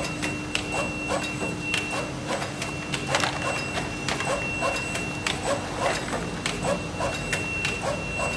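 Zhengrun ATJ400 automatic box-corner taping machine running: a steady hum and a high steady whine under a quick, uneven run of mechanical clicks and clacks from its moving parts, a few each second.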